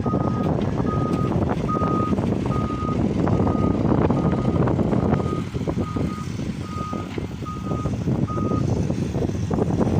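Heavy construction machine's travel or reversing alarm beeping evenly, about one beep every 0.8 s, over the loud running of its diesel engine; the beeping stops near the end.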